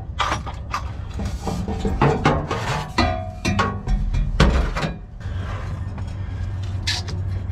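Irregular metal clanks and knocks as the cut-off section of old exhaust pipe is worked loose from its rubber hanger under the truck, with a few short metallic rings. A steady low hum comes in about five seconds in.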